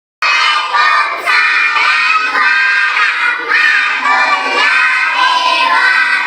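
A group of children singing together, starting abruptly about a quarter second in.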